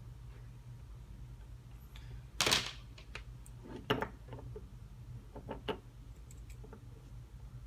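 Small handling noises at a workbench: a short loud scrape or rustle about two and a half seconds in, then a scatter of light clicks and taps. A low steady hum runs underneath.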